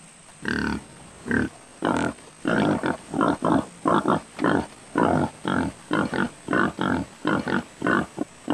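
Pig grunting in a steady string of short grunts, two or three a second, as it feeds on corn.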